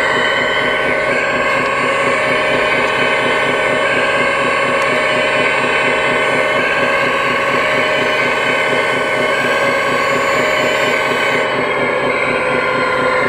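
Electric hydraulic pump of a radio-controlled scale Zaxis 330 excavator running with a steady whine while the arm and bucket dig and lift soil; the pitch shifts a little near the end.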